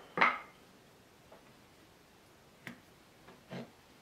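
Hands moving a steel rule and a metal 1-2-3 block on a plywood panel: a short scrape or rustle right at the start, then a few light clicks, one sharper click a little under three seconds in.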